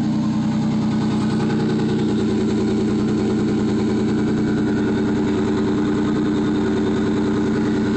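A 1993 Pontiac Firebird's 3.4-litre V6 idling steadily through a Flowmaster exhaust shortly after a cold start, heard close to the tailpipe.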